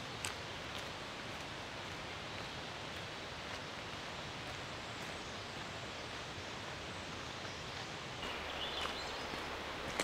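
Steady forest ambience: an even rushing hiss with a few faint chirps and clicks. A little before the end the ambience turns fuller and lower.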